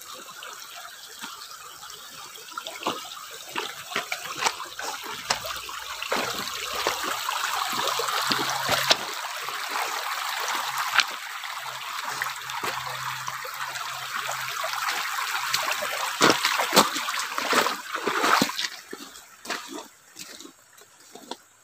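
Shallow rocky stream running over stones, with footsteps crunching on gravel and rocks. The water grows louder over the first few seconds and fades away near the end.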